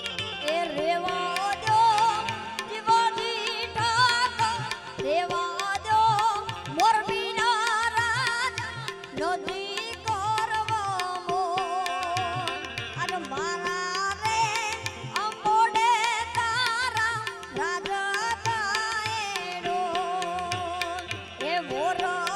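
Indian devotional music: an ornamented melody line with vibrato and glides over a steady drone, with a regular hand-drum beat.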